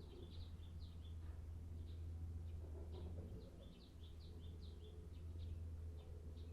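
Small birds chirping, many short high notes a second, over a steady low hum.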